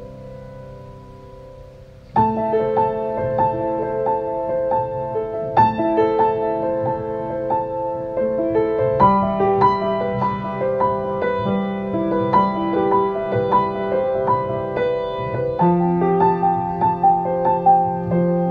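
Solo piano music: soft held notes, then about two seconds in a louder passage of steadily repeated notes over low sustained bass notes that change every few seconds.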